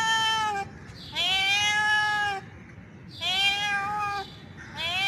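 Male tabby cat giving long, drawn-out mating calls to a female, repeated with short pauses. Each call rises at the start, then holds its pitch. The first call ends just in, two full calls follow, and another begins near the end.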